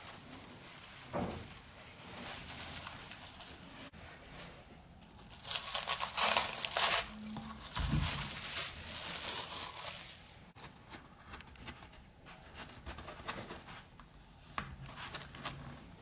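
Plastic cling film crinkling and crackling as it is stretched over and wrapped around a springform cake pan. The crackling is densest and loudest in the middle, quieter at the start and near the end.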